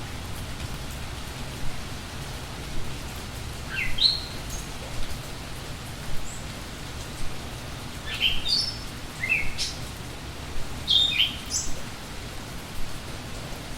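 Songbirds chirping over steady rain: short rising chirps about four seconds in, a cluster of them around eight to nine seconds, and another burst near eleven seconds.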